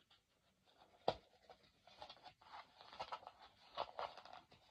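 Faint scraping and scattered clicks of a toy box's plastic packaging being handled while the screws holding the toy in are turned loose.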